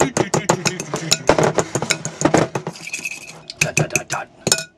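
Fork rapidly mashing avocado in a bowl: a quick run of clinks and taps, about five a second, thinning out after the first couple of seconds, with a few sharp taps near the end.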